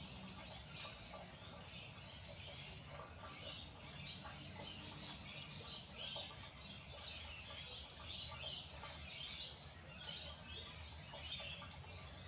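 Small birds chirping and twittering continuously and faintly, many quick overlapping calls, with a low steady hum underneath.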